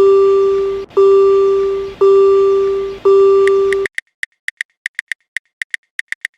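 Electronic railroad-crossing alarm sound effect: one tone struck about once a second, each stroke fading, until it cuts off a little under four seconds in. Quick, uneven high ticks follow.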